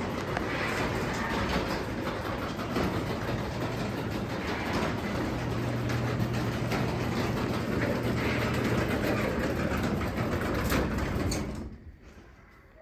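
Craftsman DC belt-drive garage door opener raising the door: a steady motor hum with the door rattling in its tracks, stopping abruptly near the end.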